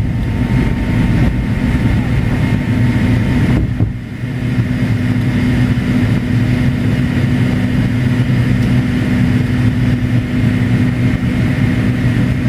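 Cabin noise of a McDonnell Douglas MD-88 climbing out after takeoff: the steady drone of its rear-mounted Pratt & Whitney JT8D turbofans mixed with airflow rush, heard from inside the cabin. The level dips briefly about four seconds in.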